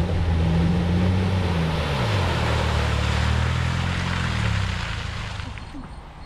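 Land Rover Freelander's engine running hard through a deep mud pit, its pitch dropping about two seconds in, with the rush of tyres churning wet mud and water. The sound fades near the end.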